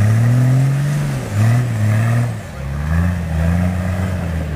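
Off-road 4x4 SUV's engine revving hard under load as it climbs a steep dirt slope, the revs dropping briefly about a second in and again about halfway through before climbing once more.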